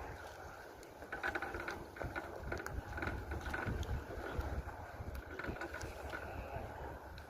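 Wind buffeting the microphone in a steady low rumble, with scattered faint clicks and knocks.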